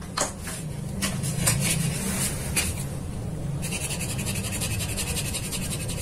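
Metalworking at a bench drill press: a steady low hum with scattered metallic clicks and clinks, then, from about three and a half seconds in, a fast, even rasping of metal.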